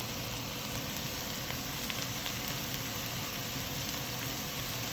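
Onions, green peppers and garlic sizzling steadily in olive oil in a pot.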